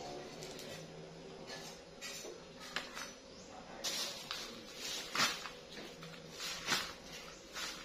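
Dry rustling and crackling from a bundle of shallots with dried stalks being handled and moved about. A few sharper crackles come in the second half.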